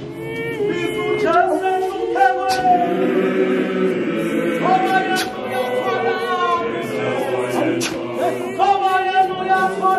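A mixed choir of men and women singing an isiZulu gospel hymn a cappella in harmony, with a few sharp knocks over the singing.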